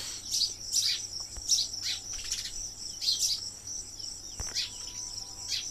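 Background chirping of insects and birds: a steady shrill high drone with short, falling chirps repeating at an uneven pace.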